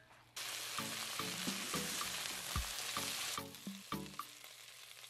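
Stir-fry sizzling in a hot wok: a dense frying hiss that starts abruptly just after the beginning and cuts off about two-thirds of the way through, over background music.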